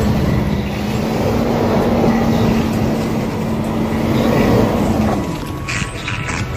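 A Toyota Land Cruiser's 4.7-litre V8 running steadily at crawling speed, with the tyres working through snow. About five seconds in, the engine drone fades and sharp crackles follow near the end.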